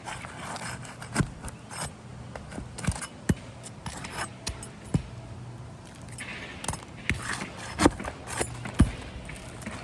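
Asphalt roof shingles being pried up and worked loose, irregular sharp clicks and knocks with short scrapes as the tabs and their sealant strips break free.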